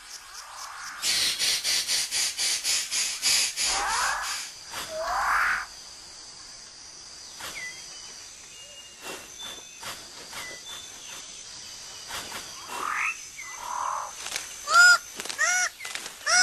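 New Guinea rainforest sounds: a fast pulsing insect buzz for the first few seconds, several rising whistled bird calls, and toward the end a loud run of repeated bird calls, two to three a second.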